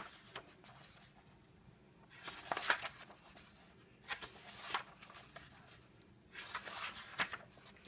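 Pages of a glue-bound paper coloring book being turned by hand: three soft rustling swishes of paper a couple of seconds apart.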